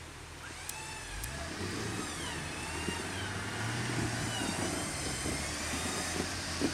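Off-road vehicle's engine picks up about a second in and then runs steadily under load, with crackling and knocks from the ground or the vehicle, and a wavering high whine over it.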